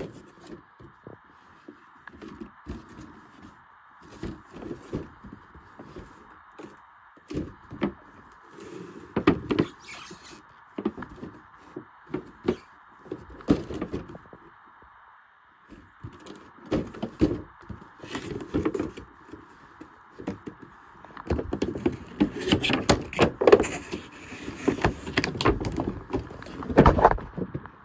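A cardboard toy box with a clear plastic window being handled and turned over: irregular knocks, rubs and crinkles that grow busier in the last several seconds, over a steady faint hiss.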